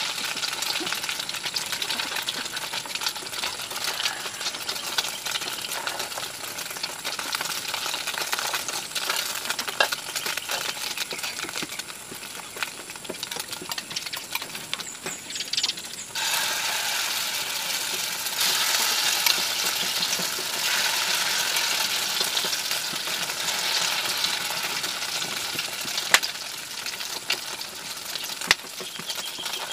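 Egg-coated beefloaf frying in oil in a pan: a steady sizzle with scattered clicks and scrapes of a utensil against the pan. The sizzle turns suddenly louder about halfway through.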